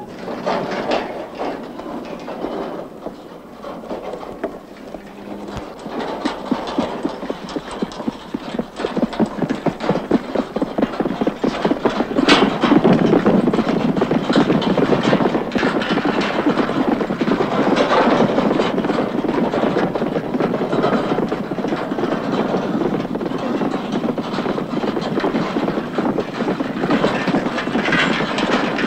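Hoofbeats of a harnessed horse trotting at speed, a rapid, even clatter. It grows louder over the first dozen seconds and then holds steady.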